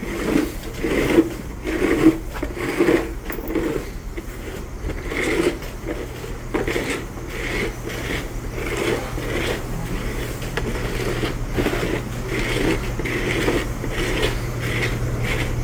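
Feed being pushed up along a barn's concrete feed alley: rhythmic scraping strokes, roughly one a second, over a steady low hum from barn equipment.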